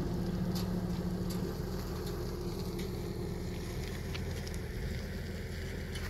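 An engine running steadily at an even pitch, with a low hum.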